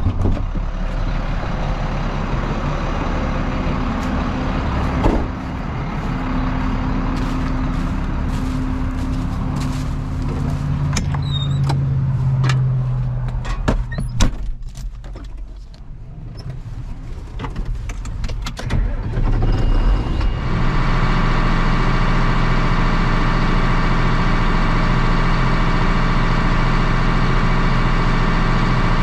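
Farm machinery engines running steadily, with a few clicks and knocks in the middle. About two-thirds of the way in, a louder, very even machine hum takes over and holds.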